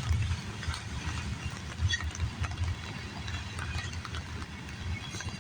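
Freight cars of a passing CN train rolling by, a steady low rumble with uneven clicks and clunks from the wheels on the rails.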